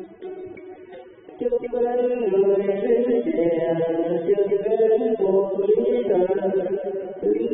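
A solo voice singing a Vietnamese song over musical accompaniment. It is quieter for about the first second and a half, then louder as the singing comes back in.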